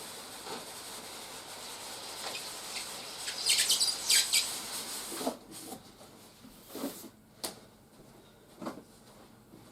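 Plastic packaging crinkling as toy parts are unpacked, loudest about three and a half to four and a half seconds in, followed by a few light knocks and clicks of parts being handled. A steady hiss underneath cuts out about five seconds in.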